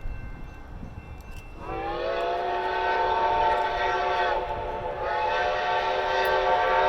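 Steam locomotive whistle blowing: a multi-tone chord that slides up slightly as it opens about a second and a half in, sounds one long blast, breaks briefly, then starts a second long blast.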